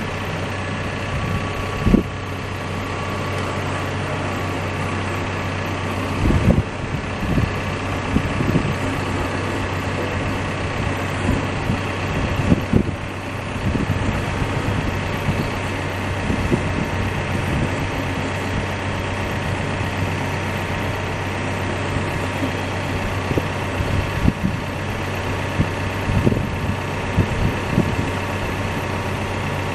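CAT backhoe's diesel engine running steadily at idle, with a few brief low thumps now and then.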